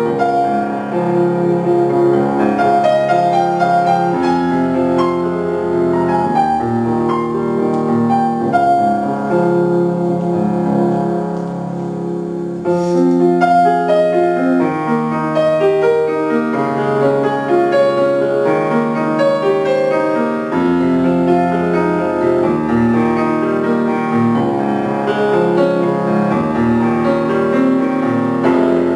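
Solo grand piano playing a melodic piece with flowing chords, softening briefly about ten seconds in before a stronger passage returns.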